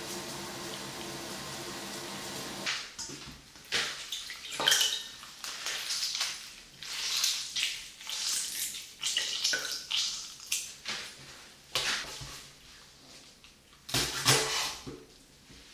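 A pot of water boiling with a steady hiss for the first few seconds. Then leafy greens are swished and rinsed in a stainless steel bowl of water, in short irregular splashes and drips. Near the end come a couple of knocks on a wooden cutting board.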